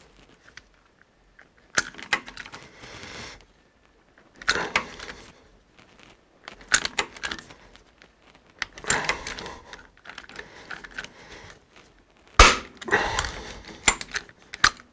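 A cheap hand pop riveter squeezed over and over, setting a pop rivet through a steel plate into an aluminium clutch arm: a run of separate metallic crunching clicks, with a loud sharp snap about twelve seconds in, as when the rivet's mandrel breaks off.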